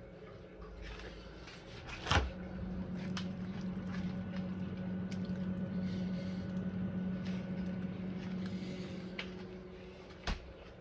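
A person eating a bite of chicken parmesan, with wet chewing sounds. A sharp click comes about two seconds in, then a steady low hum lasting about seven seconds that fades out, and another click near the end.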